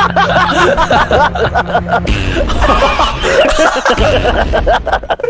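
Several people laughing, with steady music underneath.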